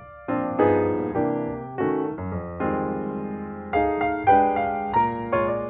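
Background piano music: chords and a melody, each note struck and left to fade.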